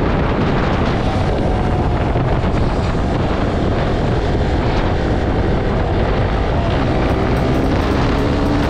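KTM Duke 200's single-cylinder engine running steadily at cruising speed, heard from the rider's position under a heavy rush of wind on the microphone.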